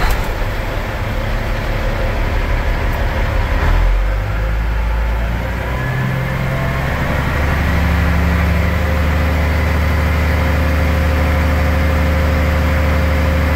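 Caterpillar diesel engine of a Western Star crane truck running warm, first at idle and then raised in steps from about four seconds in to a steady higher speed of roughly 1500 rpm, which it holds. It is being run briefly to circulate UV-dyed fuel while tracing fuel leaking into the engine oil.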